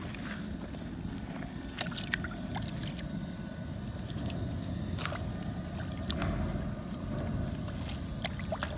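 Shallow river water sloshing and dripping as a stone is lifted out of it by hand, with a handful of sharp clicks of stones knocking against each other.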